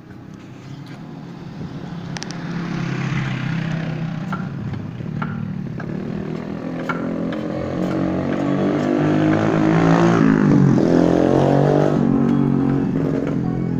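A motor vehicle's engine passing close by. It grows steadily louder over about ten seconds, passes with a shift in pitch, then begins to fade.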